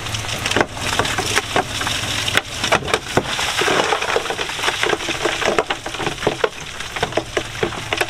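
Stone crunching, cracking and clattering under a Komatsu D31A bulldozer's blade, heard as a rapid, irregular run of sharp clicks and knocks over a low, steady diesel hum.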